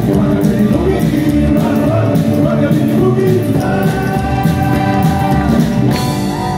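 Rockabilly band playing live, with upright bass, drums, electric and acoustic guitars and singing. It settles into a long held final chord a little past halfway, and the drums stop near the end.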